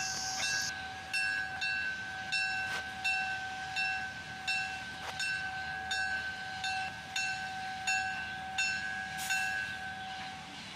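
Steam locomotive's bell ringing steadily, struck a little over once every half second, its tone hanging on between strikes; it stops shortly before the end. It is the bell rung as the train gets under way.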